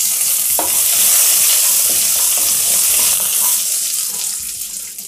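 Curry leaves, mustard seeds, urad dal and chana dal sizzling in hot oil in a nonstick kadai, stirred with a wooden spatula that scrapes the pan a few times. The sizzle dies down near the end.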